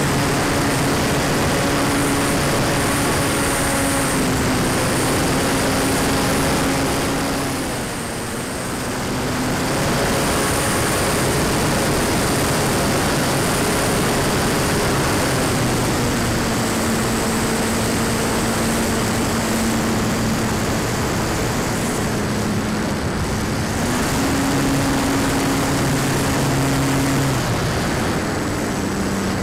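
Radian Pro RC motor-glider's onboard electric motor and propeller, a steady whine heard close up with wind rushing over the airframe. The motor cuts back briefly about eight seconds in, then picks up again, and its pitch steps down and later back up as the throttle changes.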